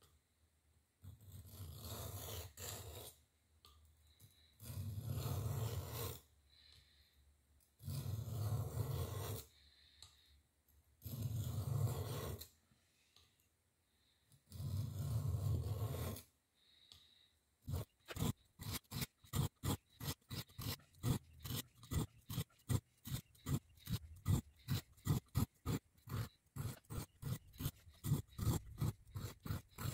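Steel butter knife scraped across a sharpening stone, grinding off its serrated teeth. It starts with five long, slow strokes a few seconds apart, then about two-thirds of the way in switches to quick short strokes, about three a second.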